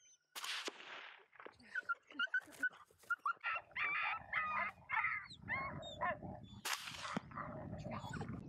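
Coyotes yipping and howling in a series of short, high, bending calls and longer wavering howls. Two sharp cracks, each with a short trailing rush, cut in: one about half a second in and one near seven seconds.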